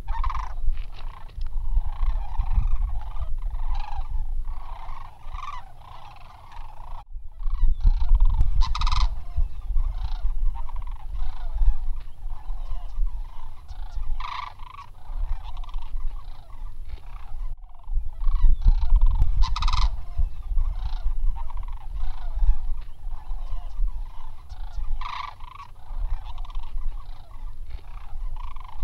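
A flock of sandhill cranes calling, many overlapping calls in a continuous chorus, over a low rumble.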